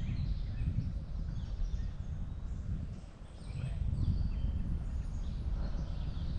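Birds chirping faintly over a low, unsteady rumble that dips briefly a little past the middle.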